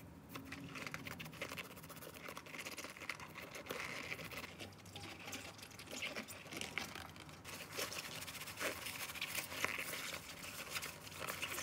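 Knitted scrubber and rubber-gloved hands scrubbing a Smeg blender's wet rubber gasket ring and blade assembly: a dense, steady run of small scratchy rubbing sounds.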